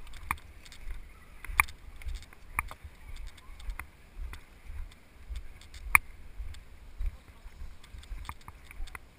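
Footsteps squelching and splashing through wet mud, with sharp irregular squelches about once a second over a low steady rumble.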